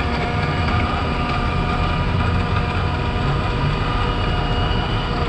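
A steady, loud mechanical rumble with a faint hum running through it.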